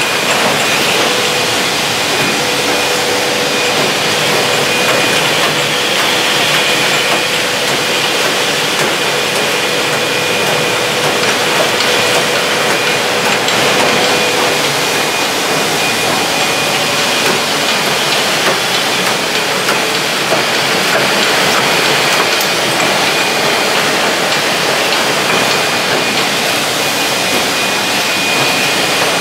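Rotary bottle washing, filling and capping machine of a bottling line running: a steady dense mechanical noise with hiss and a thin high whine throughout, plus a lower steady hum during roughly the first half.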